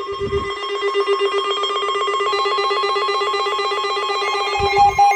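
Electronic emergency alert tones for a tornado warning: a fast-pulsing buzzy beep over a steady high tone, with a second, higher pulsing tone joining about two seconds in.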